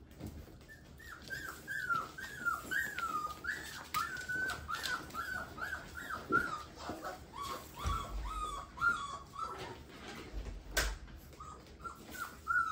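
Bullmastiff puppy whining in a long string of short, high, bending cries, about three a second, which break off about ten seconds in and start again near the end. A few sharp knocks of play sound among them.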